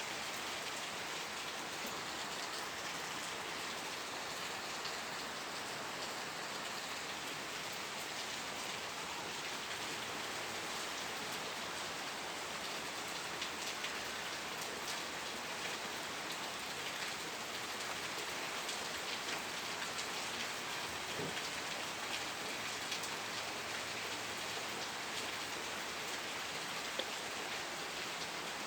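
Steady rain falling, with an even hiss of rain and scattered individual drops pattering on a surface.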